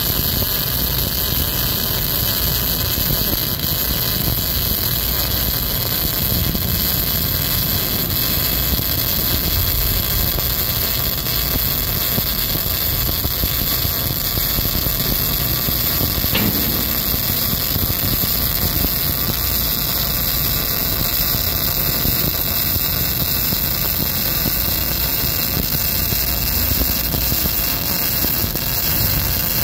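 Wire-feed (MIG) welding arc burning steadily as a weld pass is laid along a steel joint, an even, unbroken noise.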